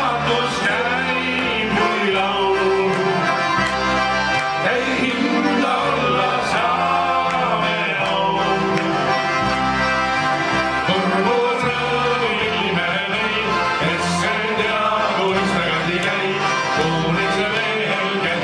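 An ensemble of Estonian diatonic button accordions (lõõtspill) playing a folk tune together over a steady alternating bass, with a guitar and a man singing.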